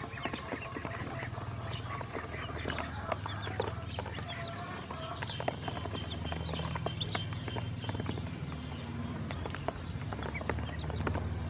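Ducklings and chicks peeping in short high chirps, with many quick taps of their bills pecking on the plastic basin and drinker tray. A steady low hum runs underneath.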